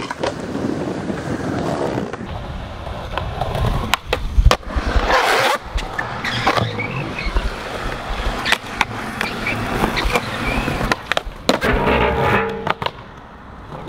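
A skateboard rolling, with repeated sharp clacks and knocks of the board and wheels hitting the ground. The loudest impact comes about four and a half seconds in, followed by a harsh noisy burst lasting about half a second.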